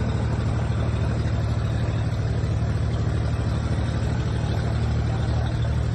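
An engine running steadily at constant speed, a loud low drone with an even, fast pulse and no change in pitch.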